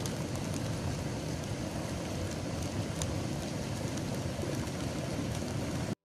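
Steady rushing of a hot volcanic mudflow (lahar) pouring down a rocky river channel, with a few sharp ticks. The sound cuts off abruptly near the end.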